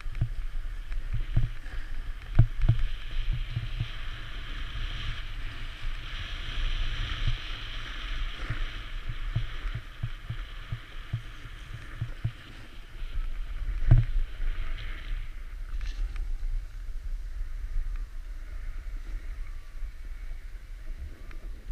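Wind buffeting an action camera's microphone during a run down a ski slope, a steady low rumble, with the hiss of edges scraping over packed snow from about two seconds in until about fifteen seconds in. Irregular bumps, the sharpest about fourteen seconds in.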